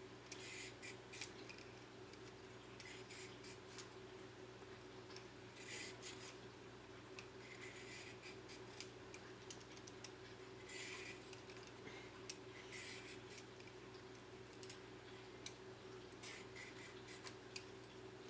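Vegetable peeler scraping the skin off a cucumber: quiet, short scraping strokes in clusters every second or two, over a steady low hum.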